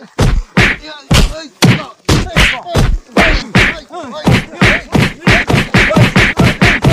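Punch and kick sound effects for a staged beating: a rapid string of loud whacks, about three to four a second and coming faster toward the end, with a man's pained cries between the hits.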